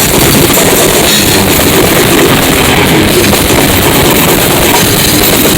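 Loud rock music from a band playing: drum kit pounding with guitar.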